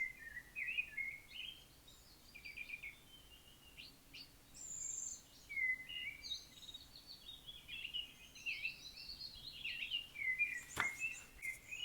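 Small birds chirping and singing, many short twittering calls overlapping one after another. A single sharp click sounds near the end.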